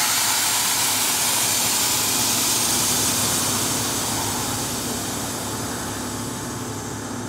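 Air ride suspension on a Ford Mustang GT 5.0 venting air from its bags: a loud, steady hiss that starts suddenly and slowly fades.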